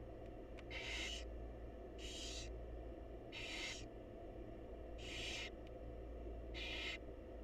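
Barn owl nestlings' hissing begging calls, five rasping breaths about half a second long at a slow, even rhythm, over a steady low hum.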